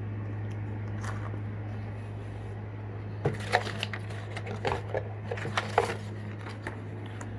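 Plastic blister packaging of fishing tackle being handled, giving a cluster of short crinkles and clicks in the middle, over a steady low hum.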